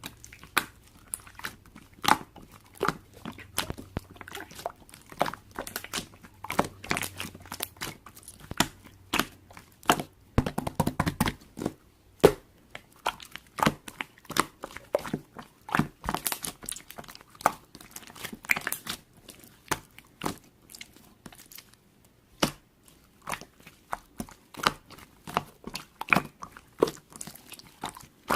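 Many short, irregular crunches and crinkles close to the microphone.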